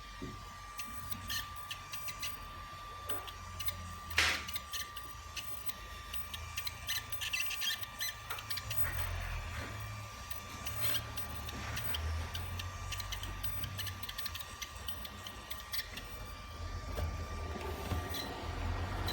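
DJI Phantom 4 RTK drone making an abnormal noise during a pan movement: irregular clicks over a steady high tone and a low rumble, with one sharper click about four seconds in.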